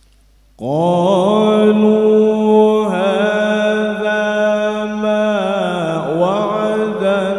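A man's voice reciting the Quran in a slow melodic chant, coming in about half a second in after a short pause. It holds long notes, with wavering ornaments twice.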